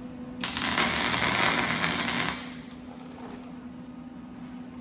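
MIG welder arc running for about two seconds, laying a weld on the sheet-steel wheel tub. It starts about half a second in and cuts off abruptly.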